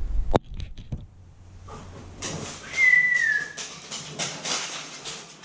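Camera being handled while it is set up, with a few knocks and rubs at the start. Then a run of short breathy puffs and, near the middle, one short high-pitched tone that falls slightly.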